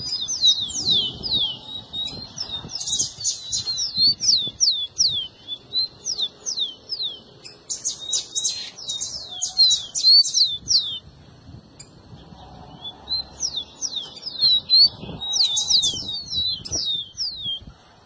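Rufous-collared sparrows (tico-tico) calling in quick runs of sharp, high, downward-slurred notes. The runs come in several bouts, with a pause of about two seconds past the middle.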